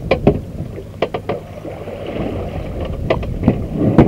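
Small boat rocking in the waves: water slapping against the hull, about eight sharp splashes or knocks over a steady low rumble.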